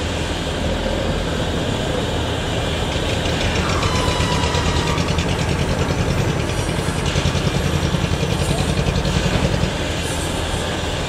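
Fishing boat's diesel engine running steadily as the boat passes close, with a fast even beat and water rushing at the bow. The engine beat grows louder from about four seconds in and eases shortly before the end.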